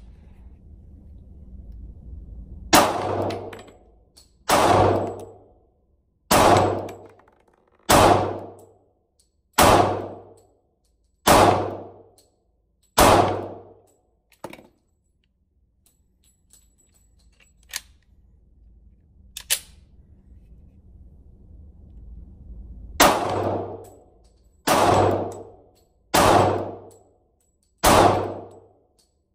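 Smith & Wesson M&P Shield 45 pistol firing .45 ACP rounds at a slow, steady pace in an indoor range: seven shots about 1.7 s apart, each ringing off the walls. After a pause of about ten seconds with a few faint clicks, four more shots follow at the same pace.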